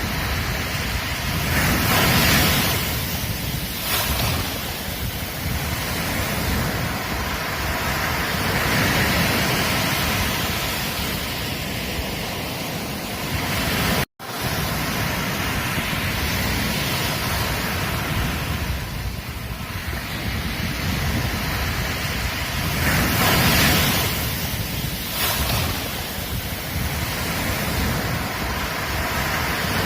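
Ocean surf breaking on a beach: a continuous wash of waves that swells louder every few seconds as each wave breaks. The sound cuts out completely for an instant about halfway through.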